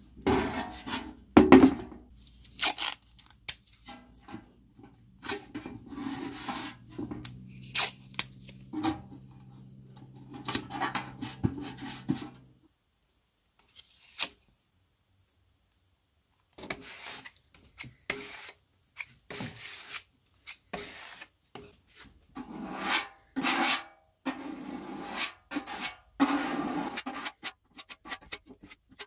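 Short hand rubbing and scraping strokes on a sheet-metal lid as body filler is worked with a spreader and sanded by hand with sandpaper. A low steady hum runs under the strokes in the first half, and the strokes stop for a few seconds around the middle before starting again.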